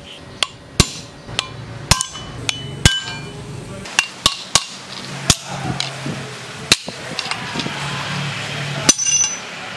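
A hammer striking a screwdriver used as a drift, driving the old lower ball race (steering bearing race) down off a motorcycle's steel steering stem. The metal-on-metal taps are sharp and irregularly spaced, some ringing briefly.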